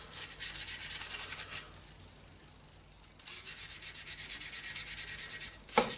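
Wire brush scrubbing a rusty hand-drill part wet in a tray of vinegar, with quick back-and-forth strokes at about eight a second. The strokes pause for about a second and a half near the middle, then resume. The rust, softened by a long vinegar soak, is being brushed off.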